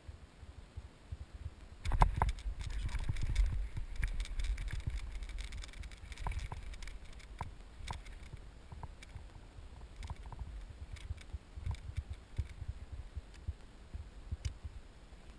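Kayak fishing handling noise: a burst of sloshing water and knocking about two seconds in, then scattered clicks and bumps of the rod, reel and hull as a fish is played and brought to the kayak.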